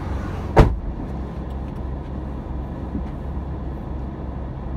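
Car running, with a steady low rumble heard from inside the cabin, and a single loud thump about half a second in.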